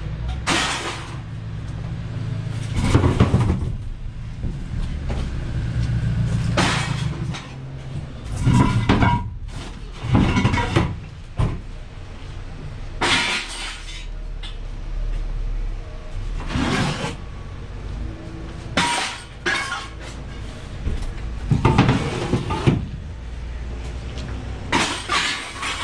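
Scrap metal being unloaded at a scrapyard: about a dozen irregular metallic crashes and clanks, some ringing briefly, over a low steady rumble.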